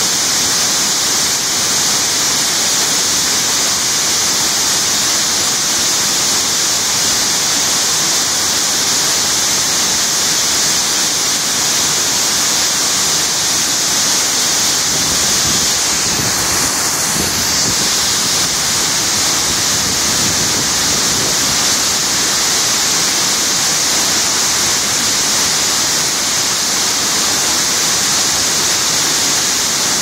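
Large waterfall pouring into its plunge pool: a loud, steady rush of falling water.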